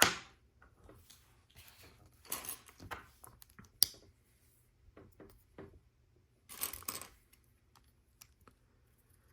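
Plastic LEGO pieces being handled and pressed together, clicking and rattling. There is a sharp click at the very start and another about four seconds in, with bursts of rattling between them and again near seven seconds.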